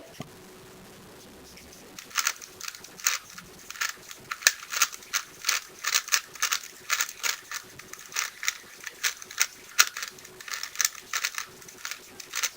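Plastic 3x3 speedcube being turned fast during a timed solve: quick runs of sharp plastic clacks, several a second with brief pauses between runs, starting about two seconds in after a single click at the very start.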